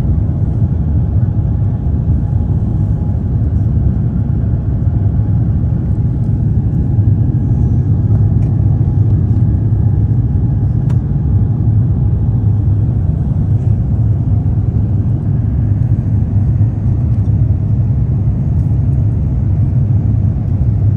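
Steady low rumble of an Airbus A350-900's Rolls-Royce Trent XWB engines and the rushing air, heard inside the passenger cabin during the climb after takeoff.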